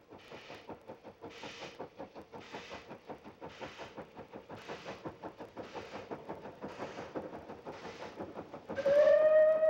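A steam locomotive approaching under steam, its exhaust beats coming about once a second and growing louder. About nine seconds in, its steam whistle sounds one loud, steady note.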